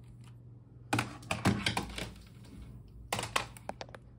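Plastic gaming mouse handled on a desk: two quick bursts of sharp clicks and taps, the first about a second in and the second near the end.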